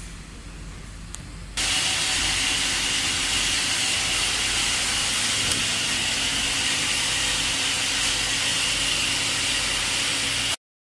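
Steady loud hiss of factory machinery, with a faint steady whine in it. It starts abruptly about a second and a half in, after a low hum with a few clicks, and cuts off suddenly just before the end.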